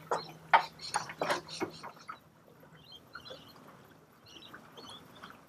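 Spanner working loose the 14 mm nut on an outboard's steering-cable link arm: a quick series of metal clicks that stops about two seconds in, followed by a few faint ticks.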